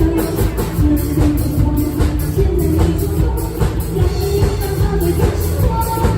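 Live pop-rock band playing a song, with a steady drum-kit beat, a strong bass and a melody line over it.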